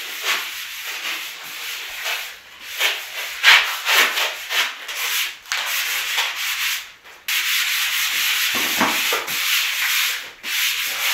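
Sandpaper rubbed by hand over a surface in uneven back-and-forth strokes, turning into a steadier stretch of rubbing a little past halfway.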